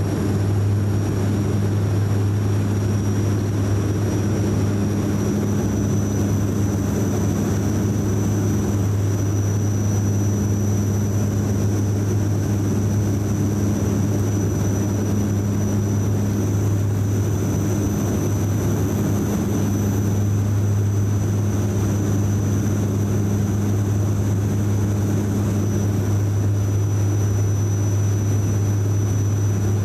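Cabin drone of a DHC-8-400 (Q400) turboprop on final approach: its PW150A engines and six-bladed propellers make a steady deep hum, with a thin high whine above it.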